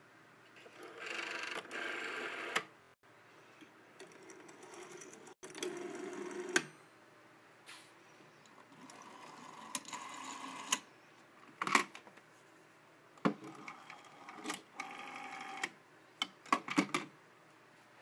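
Rotary telephone dials being wound and let go, each dial running back with a buzzing whir that ends in a click, about four times. Several sharp clicks come between the dial returns.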